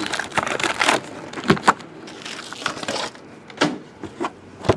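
Foil-wrapped trading card packs being handled and pulled from a cardboard box: crinkling of the foil wrappers in the first second, then a few light knocks of packs and box.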